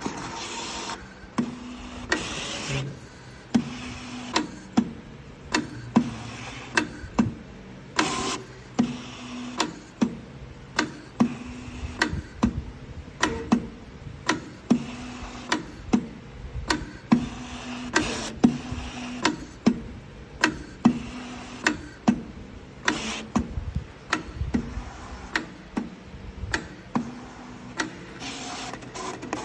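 SF-350MAX digital cutting and creasing machine running a job on uncoated 350 g ivory card. Its motors whine in steady tones that start and stop as the head moves, with irregular sharp clicks about one or two a second.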